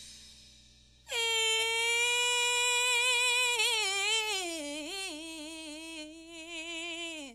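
The tail of a piece of music fades out, then a single bright, buzzy note sounds and is held for about six seconds. It gains a wobble partway through, sags lower in pitch and cuts off suddenly near the end.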